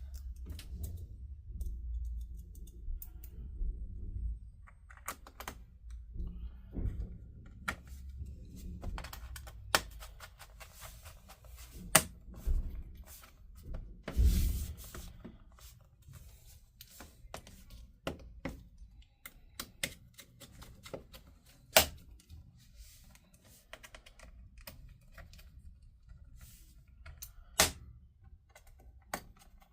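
Irregular clicks, taps and knocks of a laptop's parts being handled and pressed back into place during reassembly, with a few sharper knocks among them.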